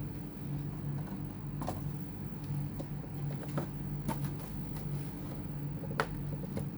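Light clicks and taps of a laptop and tools being handled, scattered irregularly over a steady low hum, with one sharper click about six seconds in.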